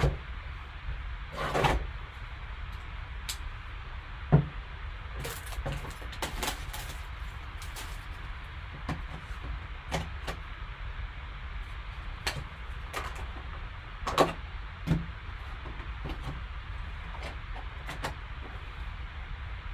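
Trading-card box and packaging being opened and handled: scattered short rustles, taps and clicks over a steady background hiss.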